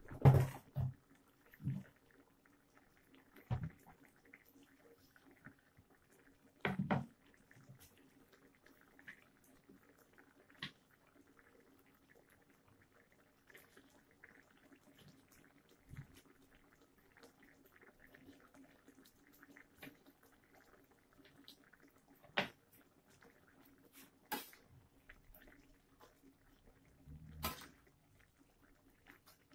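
Chicken and corn simmering in sauce in a wok: a low steady hum and faint bubbling, broken by a few sharp knocks, the loudest right at the start. Near the end a metal ladle scrapes and knocks against the wok as the dish is stirred.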